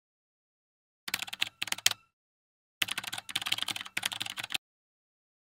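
Typing on a computer keyboard: two runs of rapid key clicks, a short one about a second in and a longer one near the middle, with dead silence between and after.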